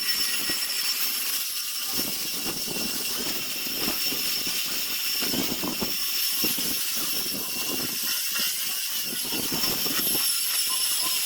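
Power sanding tool abrading a zelkova-root wood piece during rough sanding: a steady high motor whine and hiss, with irregular scraping strokes as the abrasive is worked over the wood.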